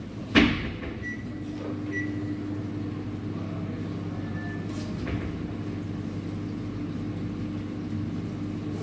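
Coffee-bar work noise over a steady machine hum: one sharp knock about half a second in, the loudest sound, then a few light clinks.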